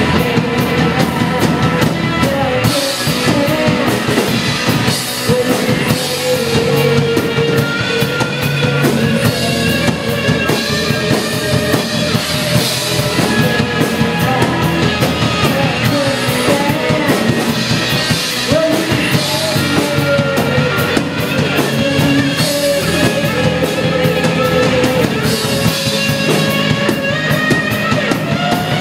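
Live rock band playing: electric guitar and a drum kit, with a singer on vocals.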